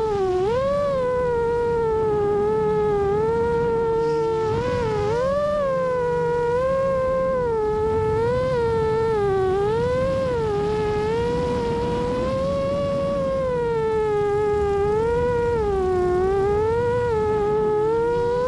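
FPV racing quadcopter's motors and propellers whining steadily, the pitch constantly swooping up and down as the throttle changes while it chases the karts.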